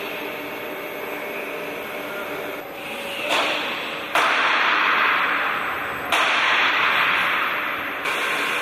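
Gantry CNC router running, a steady hiss with a faint hum from the spindle. It jumps abruptly louder and brighter about three and four seconds in, and shifts again about six and eight seconds in.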